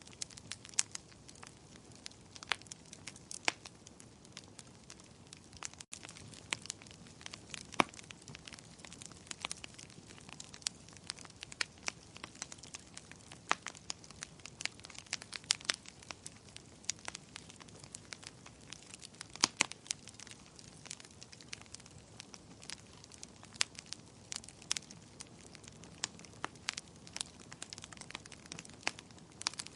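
Wood fire crackling: irregular sharp pops and snaps, some louder than others, over a soft steady hiss.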